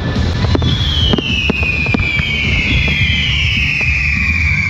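Fireworks going off, with scattered bangs and several long whistles that begin about half a second in and slowly fall in pitch over a few seconds.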